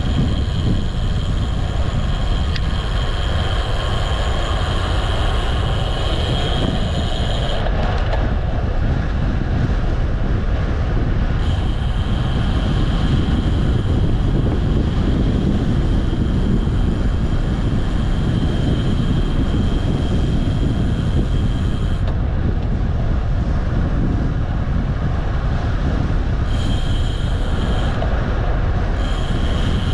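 Steady rush of wind over the microphone of a moving bicycle, with a thin high whine that cuts out and returns several times.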